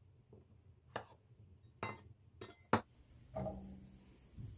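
Kitchen knife chopping potatoes on a wooden cutting board: a few sharp separate knocks, roughly a second apart. A softer, longer sound follows near the end.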